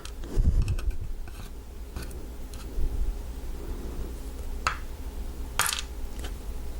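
Small metal clicks and taps from lock pins, springs and tools being handled while a padlock is taken apart and its pin stacks emptied onto a pinning tray. A dull knock about half a second in and two sharper clicks near the end stand out over a low hum.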